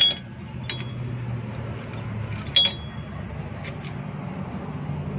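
A socket tool clinks against steel as the rear hub's retaining bolts are undone: two sharp metallic clinks with a brief ring, one at the start and one about two and a half seconds in, among a few lighter ticks.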